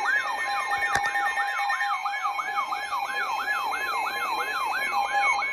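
Emergency Alert System attention signal: a steady two-note alert tone with a falling, siren-like sweep repeating about three times a second over it, sounding ahead of a broadcast severe thunderstorm warning. There is a brief click about a second in.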